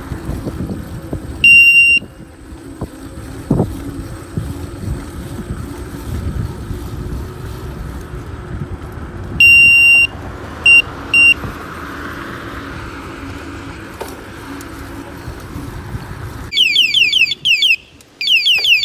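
Electric bike horn sounding in short blasts over wind and riding noise: a half-second steady high beep about a second and a half in, another near the middle followed by two quick chirps, then near the end a fast repeating falling siren-like tone.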